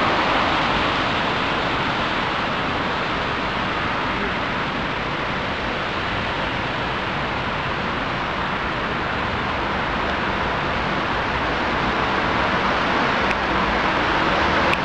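Steady city road-traffic noise: an even, constant wash of passing cars with no single vehicle standing out.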